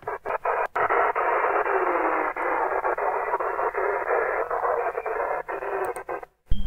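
Static hiss from a WebSDR receiver tuned to 27.225 MHz on the CB 11 m band and demodulating in FM, with a few short breaks in the first second. The station on this frequency turns out to be AM, so FM mode gives only hiss. The hiss cuts off abruptly near the end as the receiver is switched to AM, and a brief thump and a short beep follow.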